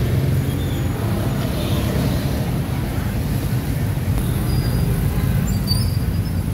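Steady street traffic noise: a continuous low hum of motorbike and vehicle engines passing on the road.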